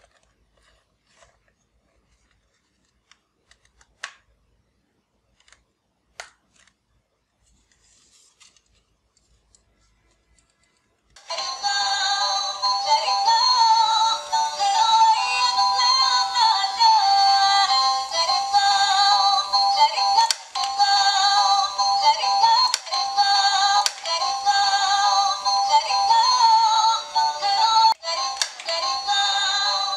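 Two faint plastic clicks as a bottle is fitted to a toy bubble gun, then about a third of the way in the gun's built-in electronic tune starts: a thin, bass-less synthesized melody that plays on loudly, with a few sharp clicks over it.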